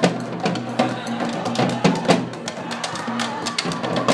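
A group of snare drums played together with sticks, a dense, continuous rhythm of many quick strokes.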